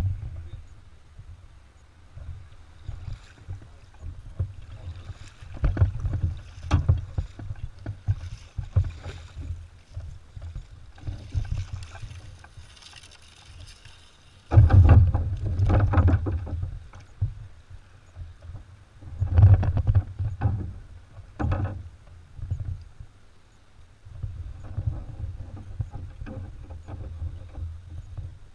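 A red kayak being paddled: paddle strokes splashing, short knocks on the hull and a low rumble, with louder stretches about halfway through and again a few seconds later.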